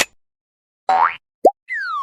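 Cartoon sound effects: a sharp click, a short rising boing about a second in, a quick pop, then a falling whistle-like glide starting near the end.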